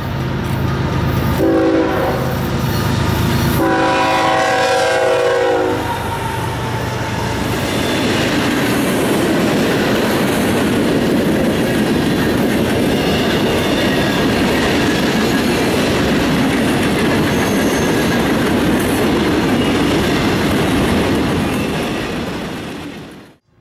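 A freight locomotive's chime horn sounds several blasts with short breaks as the train approaches. Then the boxcars roll past with a steady rumble and clatter of steel wheels on the rails, which cuts off suddenly near the end.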